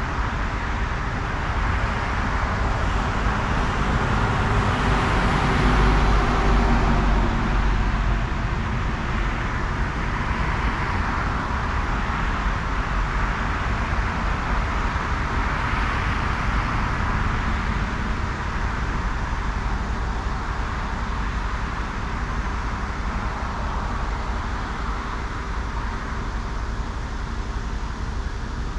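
Highway traffic passing, a steady hiss of tyres and engines that swells as each vehicle goes by. The loudest pass, with a deep rumble, comes about five to seven seconds in.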